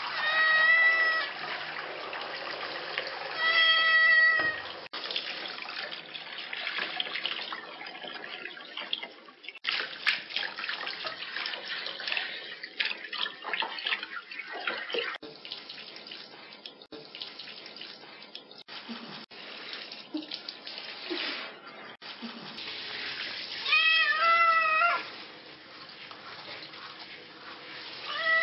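Domestic cat meowing loudly while being bathed: two meows a few seconds apart near the start, and two more close together near the end. Between the meows, a hand shower sprays and splashes water over the cat and the tub.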